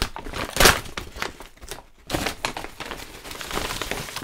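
Brown paper mailer bag rustling and crackling as it is handled and opened, loudest about half a second in; after a brief lull, steady crinkling as a plastic-wrapped hoodie is drawn out of it.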